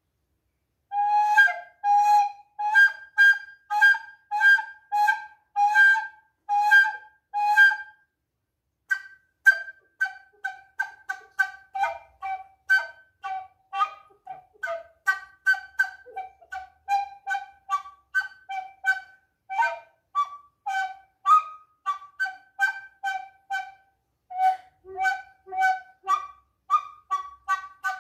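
Recorder played in short, separate notes imitating bird calls. For the first several seconds the notes come evenly, about one and a half a second. After a brief pause they turn quicker and shorter, two to three a second, moving between a lower and a higher pitch.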